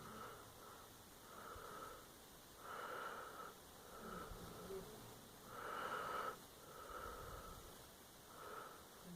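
Faint snoring of a sleeper: a run of breathy snores roughly one a second, the two loudest about three and six seconds in.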